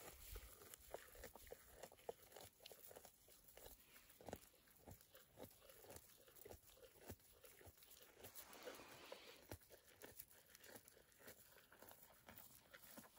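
Highland cattle calf chewing dry hay: faint, irregular crunching, with a rustle of hay about two-thirds of the way through.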